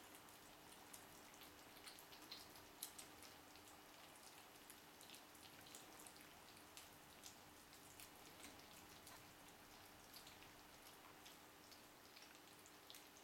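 Faint wet smacking and lapping of several ragdoll kittens eating wet cat food from a plate: a quick, irregular patter of small clicks, over a faint steady hum.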